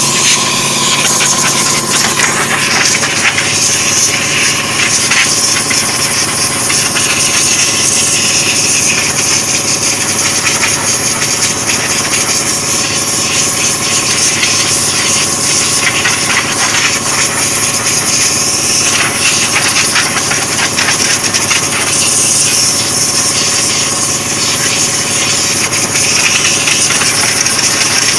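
Spray gun hissing as silver chrome solution is sprayed onto a steel wheel, the hiss swelling and easing, over the steady hum of a motor-driven compressor.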